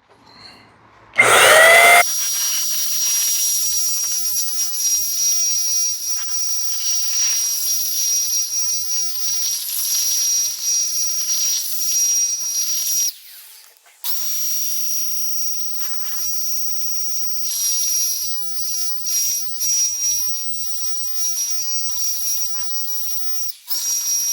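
Electric paint sprayer running as it sprays primer onto metal roof panels: a steady high whine over a hiss. It spins up about a second in, cuts out for about a second midway while the trigger is released, and stops again just before the end.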